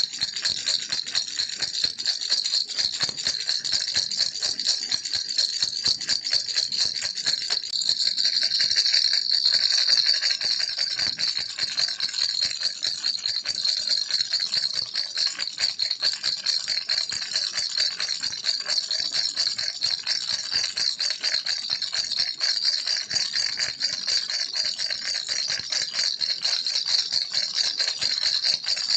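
Baby rattle shaken continuously: a dense, rapid clatter that never pauses, a little louder about a third of the way through.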